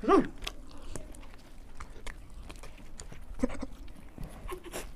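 People chewing and biting into puris: scattered small wet clicks and smacks of eating. There is a brief vocal sound at the very start.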